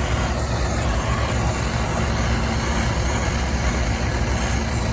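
Brazing torch burning steadily while it heats a copper refrigerant line joint on a compressor, a continuous hiss over a low rumble.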